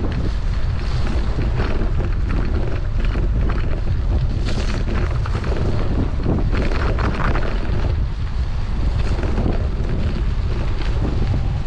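Loud, continuous wind buffeting on the microphone, with gusts of hiss coming and going.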